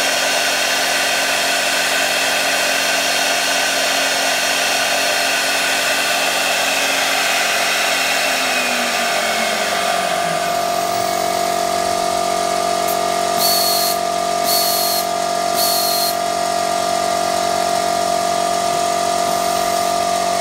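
A reed-cutting CNC machine's spindle runs steadily, then winds down in pitch about halfway through, while a steady machine hum carries on. Later come three short hisses about a second apart.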